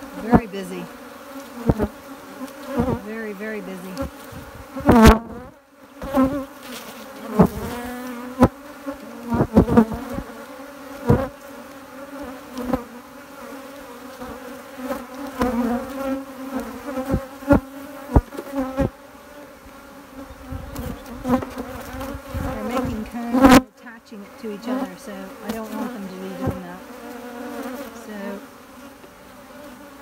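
Many honeybees buzzing around an open hive in a steady, wavering hum. Frequent short sharp knocks sound over it, the loudest about five seconds in and again near the end of the third quarter.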